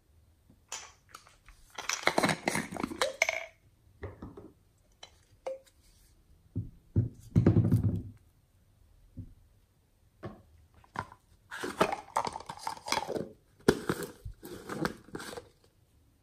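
Small plastic bottles handled and their screw caps twisted open by hand: bursts of clicking and rattling about two seconds in and again through the last few seconds, with a duller thump near the middle.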